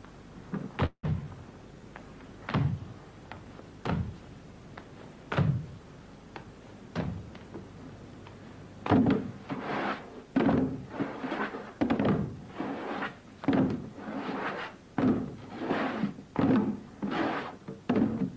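Large plastic jugs struck by hand as percussion, giving hollow thuds. They come singly about every one and a half seconds at first, then from about nine seconds in faster and louder, several hits close together.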